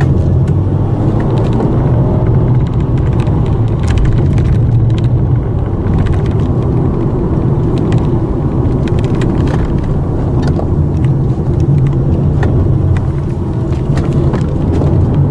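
Steady low drone of a moving car, road and engine noise heard from inside the cabin, with a few light ticks.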